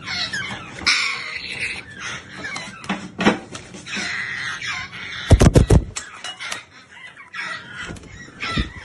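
Parrot chicks squawking and chattering with harsh, overlapping calls. About five and a half seconds in comes a quick run of loud thumps.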